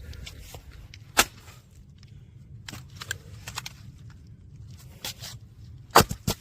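Firewood being split by a log-splitting machine: sharp wooden cracks and knocks, a loud one about a second in and two close together near the end, with smaller knocks between, over a low steady rumble.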